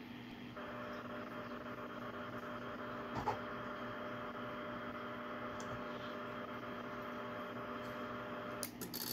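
A steady electrical hum with several fixed tones, heard while the Icom IC-706MkIIG transceiver is keyed in FM to send a tuning carrier into the ATU-100 auto tuner. The hum comes on about half a second in and cuts off shortly before the end. There is a sharp click about three seconds in as the tuner's TUNE button is pressed, and a few quick clicks near the end.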